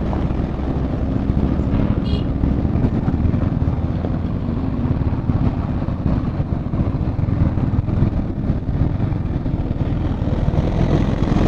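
Motorcycle riding slowly in traffic: a steady low engine rumble mixed with wind noise on a phone microphone. A short high beep sounds about two seconds in.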